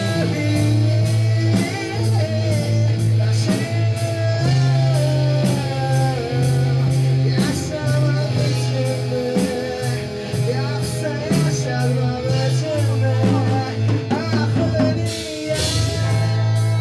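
Rock band playing a song in a rough demo recording: guitars, bass guitar and drum kit, with a melody line moving over a steady bass and regular cymbal hits, and a crash cymbal near the end.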